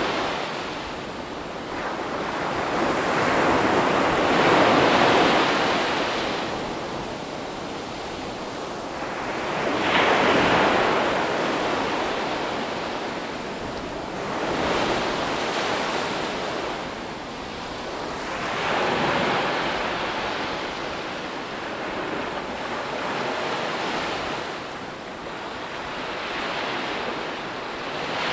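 Ocean waves breaking and washing up a shore, a rushing hiss that swells and falls back about every five seconds.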